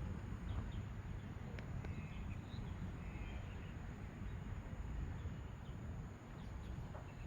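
Outdoor background noise: a steady low rumble with a few faint, short chirps and an occasional faint tick.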